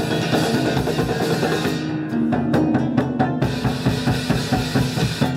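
Japanese taiko drums beaten in a fast, dense rhythm over pitched music, with a run of sharp, hard hits about two to three and a half seconds in.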